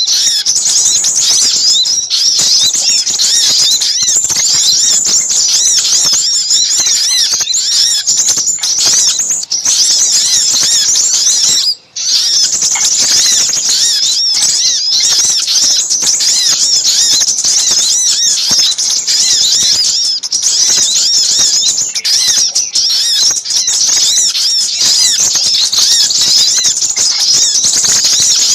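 Dense, unbroken chorus of small birds' rapid high chirps and trills, many overlapping: a bird-lure recording of little spiderhunters mixed with scarlet minivets. It cuts out for a split second about midway.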